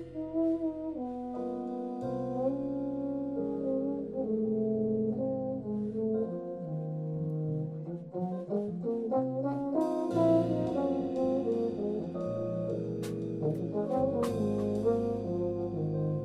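Trombone playing a melodic jazz line of held and moving notes over keyboard chords and a bass line, with a few sharp hits in the second half.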